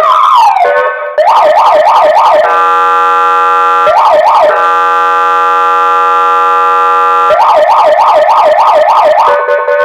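50-watt electronic siren through a horn speaker running a tone sequence: a falling wail, rapid yelps, then a long steady honking horn tone, the 'duck' alert, cut briefly by a short yelp, then rapid yelps again and a slow rising wail near the end. Very loud.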